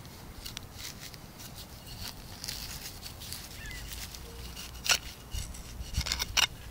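Digging into soil with a hand digging tool: scattered scrapes and knocks, with a few sharper clicks a little before five seconds in and near the end.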